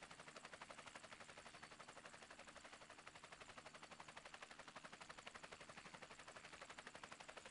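Faint, steady, rapid chop of helicopter rotor blades, about ten beats a second, picked up during aerial filming.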